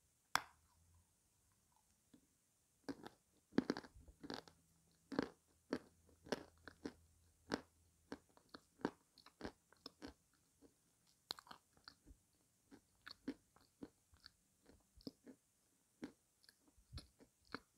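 Close-miked crunching and chewing of dry edible clay. One sharp bite comes about half a second in, then a dense run of crisp crunches from about three seconds on.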